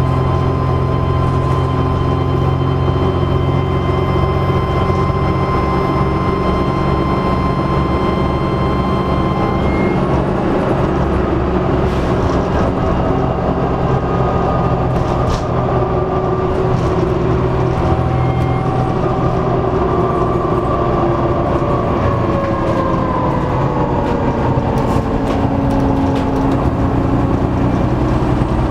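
Dennis Trident double-decker bus's diesel engine running with a turbocharger whine over the engine rumble. The whine holds steady for about ten seconds, then shifts in pitch, falling about two-thirds of the way through, with a few brief clicks and rattles.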